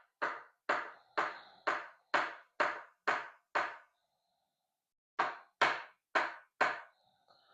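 A run of short, sharp knocks in a steady rhythm, about two a second: eight in a row, a pause of about a second and a half, then four more.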